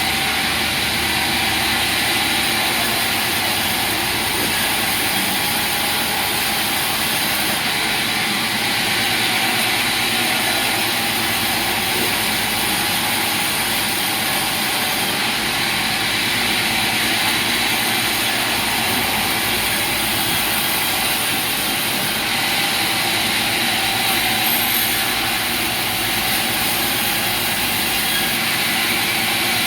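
Sawmill machinery running steadily: an even mechanical noise with a thin high whine and no change in load.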